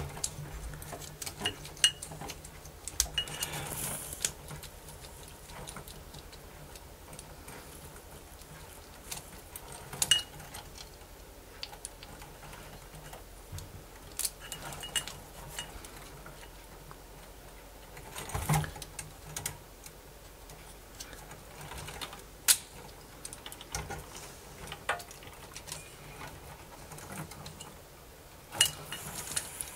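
Scattered small clicks and knocks of plastic and metal parts being handled as a cassette deck's tape mechanism is worked loose from its chassis during disassembly, with a faint low hum underneath.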